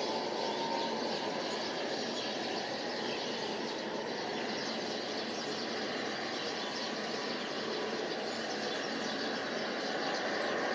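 Embraer E175 regional jet on final approach, its turbofan engines giving a steady whine and rush with no change in level.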